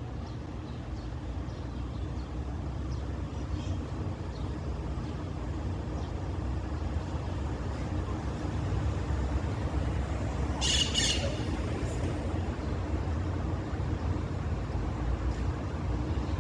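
A bird gives a loud, harsh squawk, two close calls about ten and a half seconds in, with a few faint short calls elsewhere. Under it runs a steady low rumble.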